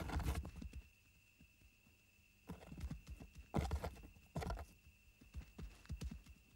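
Added footstep sound effects for running dinosaurs: irregular clusters of thudding footfalls, clip-clop-like, with a faint steady high tone underneath.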